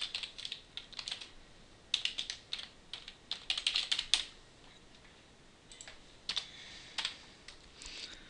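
Computer keyboard typing: quick runs of keystrokes in the first half, a pause, then a few scattered keystrokes near the end.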